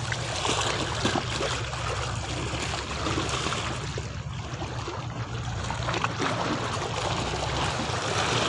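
Small waves lapping and washing against shoreline rocks, a steady watery wash over a low, even hum.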